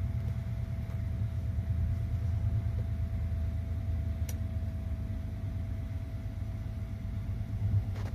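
Steady low rumble of the 285-series Sunrise Seto sleeper train running, heard inside a single compartment, with a faint steady hum over it and one light click about four seconds in.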